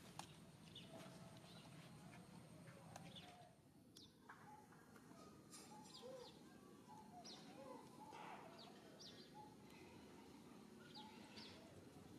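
Faint outdoor ambience with scattered short, high bird chirps and a few soft wavering calls.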